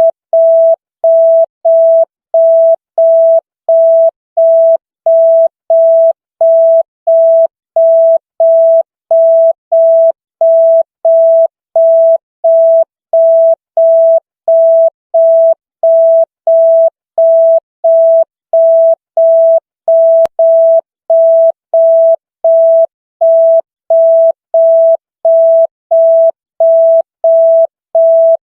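Electronic signal tone: a single pure beep switching evenly on and off about one and a half times a second, like a telephone busy tone.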